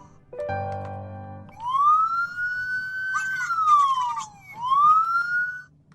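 Police car siren wailing: it rises, holds, falls, then rises again and cuts off near the end. Just before it comes a brief, steady chord-like electronic tone.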